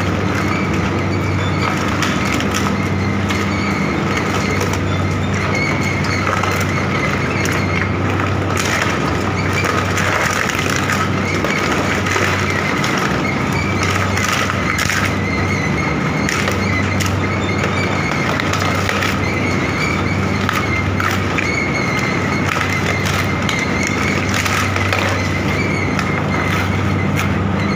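Industrial animal-carcass shredder running: a steady low hum with a constant higher whine, broken by frequent short cracks and knocks.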